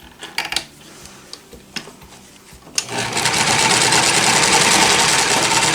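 A few light clicks, then about three seconds in a Janome L393 sewing machine starts and runs steadily, stitching at an even speed.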